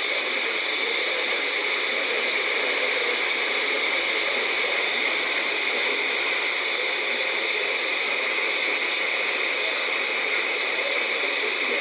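Steady radio static: an even hiss from a radio receiver with no program audible.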